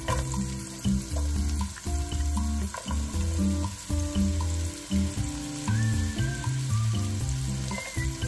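Sliced onions sizzling as they go into a hot skillet and are stirred with a wooden spatula, over background music with a steady bass line.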